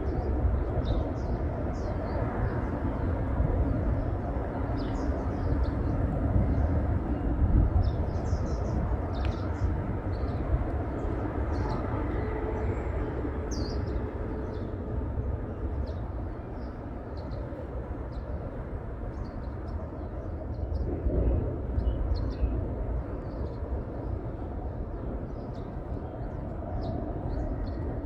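Birds chirping in woodland, short high calls scattered throughout, over a steady low rumble that is the loudest sound.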